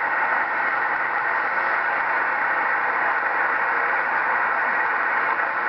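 Amateur radio receiver hiss: steady band noise from the speaker while listening after a Morse CQ call, with no station answering.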